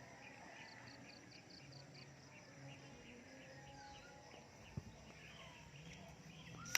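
Faint outdoor ambience of insects chirping in a quick, even rhythm, with one sharp click about five seconds in.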